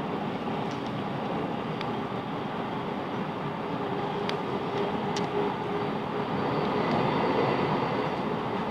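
Class 707 Desiro City electric train running, heard from inside the carriage: a steady rumble of wheels and running gear with a faint motor tone and a few sharp clicks.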